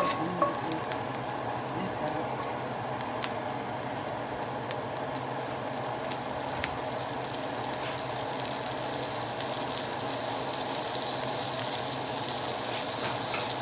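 Butter melting and sizzling in hot olive oil in a cast iron skillet: a steady frying hiss that grows a little brighter near the end, with a few small ticks.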